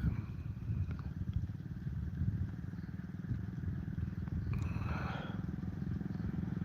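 Vehicle engine running steadily, a low rumble with a fast, even firing pulse, heard from on board as it drives along.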